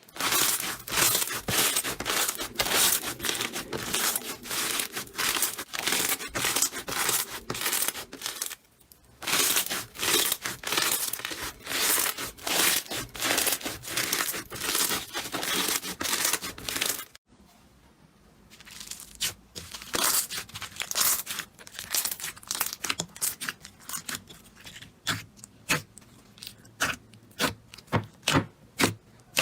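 Slime being squeezed and pressed by hand, giving rapid crackling and popping. It breaks off briefly twice, and in the last part the pops come sparser and more separate.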